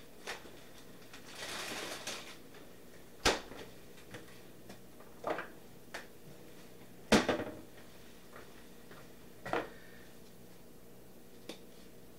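Knocks and clunks of kitchen items being handled. A brief rustle comes about a second and a half in, then four separate knocks a couple of seconds apart; the loudest is about seven seconds in.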